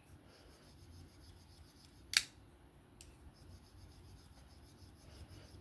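Asher Spiro folding knife on freshly fitted Skiff pivot bearings: the blade snaps open with one sharp click about two seconds in, followed by a faint click a little under a second later.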